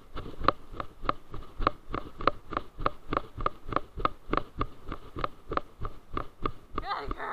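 Running footsteps on grass, about three strides a second. Each footfall comes through as a regular thump with a short ringing knock from the jolting body-worn camera.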